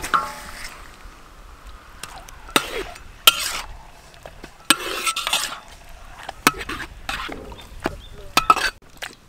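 A slotted metal ladle scraping and clinking against a steel wok in a series of irregular strokes as chicken legs are turned and basted in a caramelised sauce.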